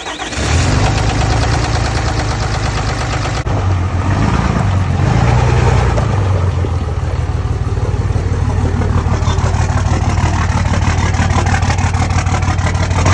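Dodge Ram's Cummins diesel engine catching within the first half second and then running steadily. The owner diagnosed rod knock in this engine and has just added a thicker oil additive to quiet it.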